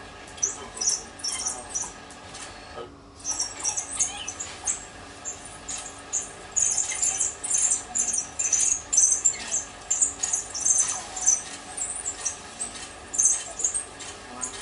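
African wild dogs twittering: rapid runs of short, very high-pitched squeaky chirps, in bursts and irregular, the pack's excited calling while they pull down an impala.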